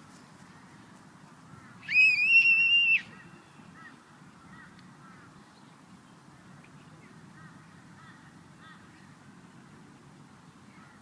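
A single high-pitched, squeaky gasp for breath lasting about a second, about two seconds in.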